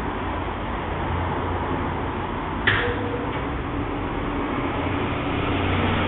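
Ipso 181 commercial washing machine running with a steady hum and noise, with one sharp click a little under halfway through.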